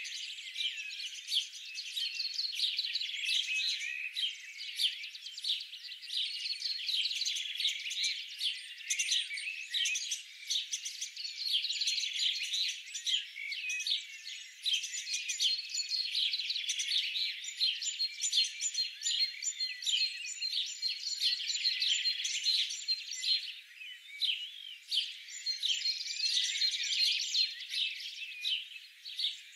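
Dense chorus of many small songbirds chirping and twittering over one another without pause. The sound is thin and high, with nothing in the low range. It thins out briefly about 24 seconds in.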